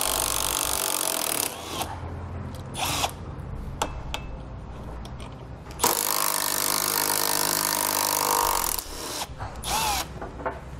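Cordless drill with a socket running in several bursts as it backs out the 13 mm bolts that hold a car's AC condenser: a run of about a second and a half, a short burst, a longer run of about three seconds, then a brief burst near the end.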